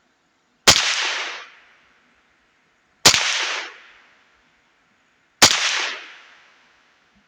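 Ruger 10/22 semi-automatic .22 LR rifle firing three deliberate shots about two and a half seconds apart, each a sharp crack with a short echoing tail.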